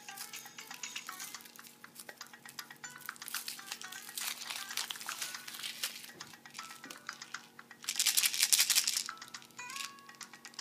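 Thin foil wrapper crinkling and crackling as it is peeled off a chocolate figure and handled, loudest about eight seconds in. Background music plays underneath.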